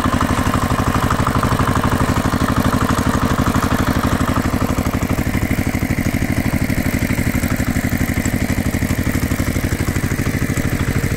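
Engine sound effect: an engine idling with a fast, even chugging pulse.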